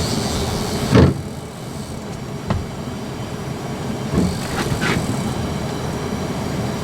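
Boat motor running steadily, with a hard thump about a second in and a lighter knock at about two and a half seconds.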